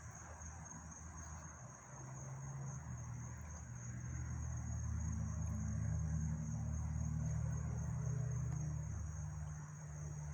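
Crickets chirping steadily in a continuous high chorus, with a low engine drone underneath that swells over a few seconds and then eases off.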